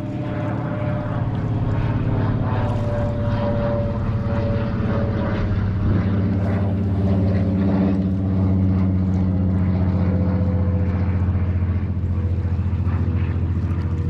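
A steady engine drone with a low hum, swelling over the first couple of seconds and then holding.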